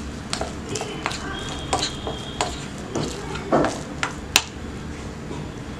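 Irregular clinks and knocks of a bowl and utensil as raw chicken wings are put into a spice mix and tossed, the loudest about three and a half and four and a half seconds in.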